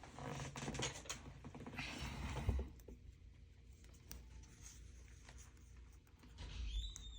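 Light rustling and scratching of paper and tape being handled at a desk. Near the end there is a brief high squeak.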